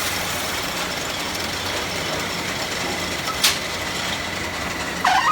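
Workshop machinery running steadily with a low hum and a constant noisy wash, and one sharp click about three and a half seconds in.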